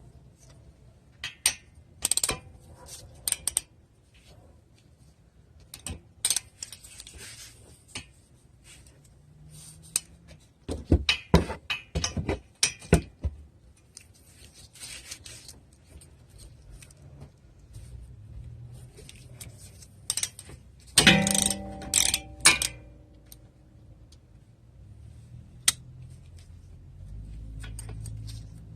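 Hand tools and metal brake parts being handled during front brake rotor replacement: scattered clicks, clinks and knocks, with a group of sharp knocks midway and a loud ringing metal clank about three quarters through.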